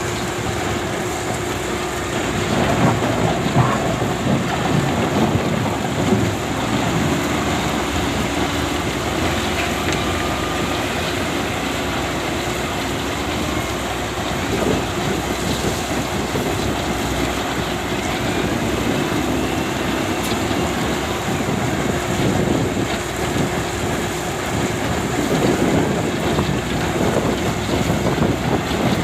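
SDLG excavator's diesel engine running with a steady hum under rough rumbling and clatter as it loads a dump truck, louder about three to seven seconds in and again near the end.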